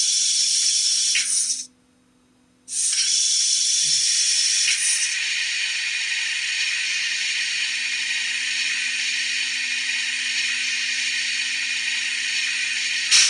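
Steam-locomotive driving sound from the Viessmann H0 powered low-sided wagon's digital sound module, switched on with function F1: a steady hiss of steam. It breaks off for about a second near the start, then resumes and runs on, with a sharp click near the end.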